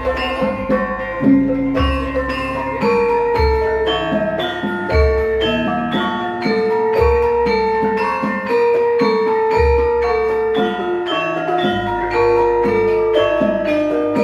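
Javanese gamelan ensemble playing a gending: bronze metallophones ring out a steady interlocking melody over deep low strokes that recur every couple of seconds.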